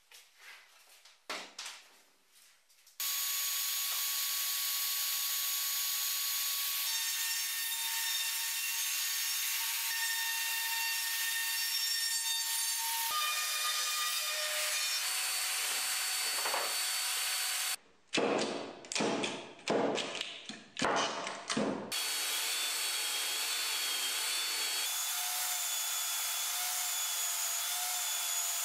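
Woodworking power tools running in turn. First come steady machine runs, including a plunge router cutting a circular groove in plywood with a circle jig. Loud, irregular strokes follow for a few seconds, and near the end a belt sander runs while a plywood ring is sanded against it.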